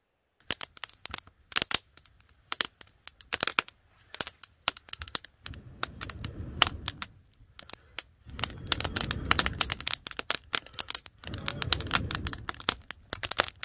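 Wood campfire crackling, with dense, irregular sharp pops as the burning wood throws sparks. Three stretches of low rushing noise, each a second or two long, run under the crackle.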